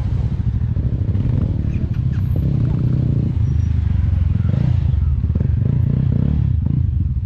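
Mahindra Mojo motorcycles running as they ride past close by on a dirt track, one at the start and another about four seconds in.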